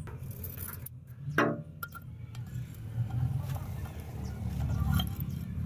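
Hot sword blade quenched in a ceramic jar of liquid to harden it: a ringing clink against the jar about a second and a half in, then a steady sizzling and bubbling that swells near the end.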